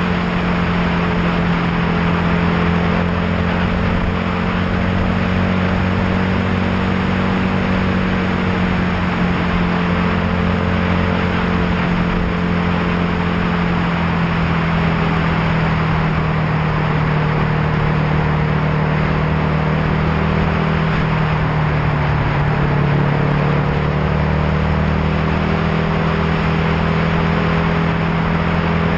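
A vehicle's engine running at a steady cruising speed under a constant rush of tyre and road noise; the engine note dips slightly and recovers about two-thirds of the way through.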